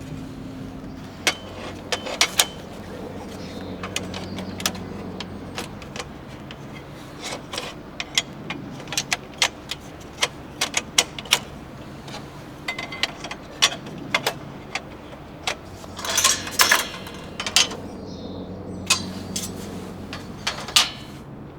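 Objects being handled: irregular light clicks, clinks and knocks, with a cluster of louder knocks about two-thirds of the way through, over a steady low hum.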